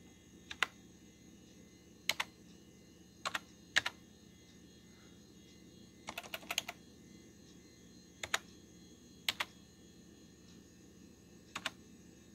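Computer keyboard keys pressed one at a time with pauses between, a quick run of several keystrokes about six seconds in, over a steady low hum.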